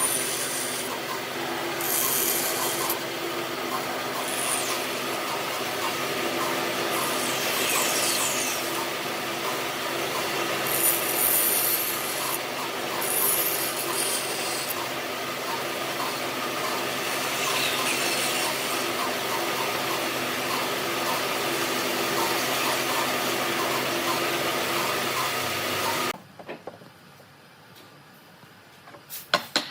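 A power tool running steadily on wood for most of the time, then cutting off suddenly near the end, followed by a sharp knock or two.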